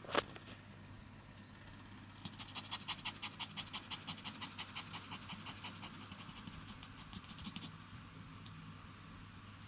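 A dog scratching itself, a fast even run of scratchy strokes, about seven a second, lasting some five seconds. A single sharp click comes just before it.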